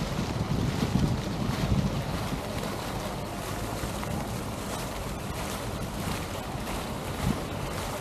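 Wind buffeting the microphone, heaviest in the first two seconds, over a steady rushing outdoor noise, with one short thump about seven seconds in.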